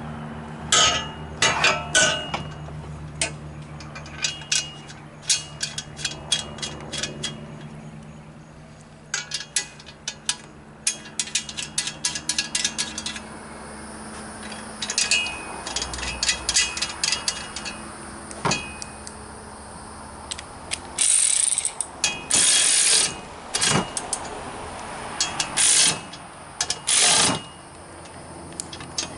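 Ratchet wrench clicking in quick runs as bolts are driven in and tightened on a metal tire change stand, with a few louder, longer stretches of clicking later on.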